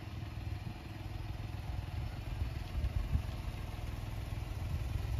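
Daihatsu Tanto kei car's small three-cylinder engine idling steadily.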